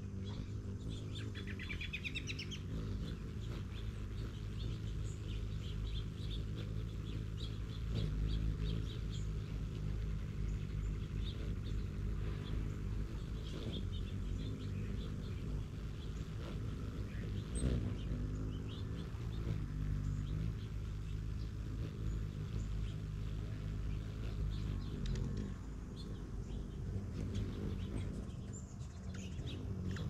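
Hummingbirds chipping and chattering at nectar feeders, short high chips scattered throughout with a quick rising twittering run about a second in. A steady low hum runs underneath.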